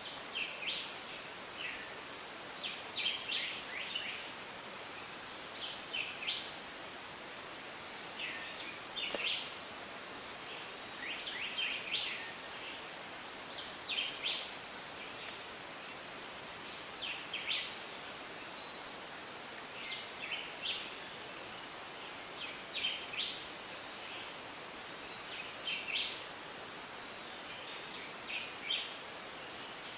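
Tropical rainforest ambience: a steady background hiss with frequent short, high chirping calls at irregular intervals.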